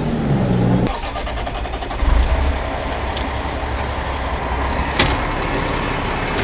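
International rollback tow truck's engine started with the key about two seconds in, then running at a low idle. A steady hum cuts off about a second in, and there is one sharp click about five seconds in.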